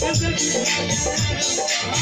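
Live stage music through loudspeakers: a singer with a band, a steady beat and shaker-like percussion.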